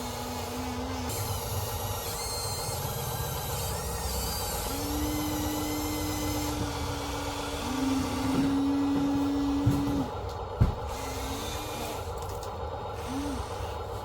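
Small electric motors of a radio-controlled construction toy whining in short runs, each held at one pitch, starting and stopping and stepping in pitch, over a steady mechanical hum. A single sharp knock about ten and a half seconds in.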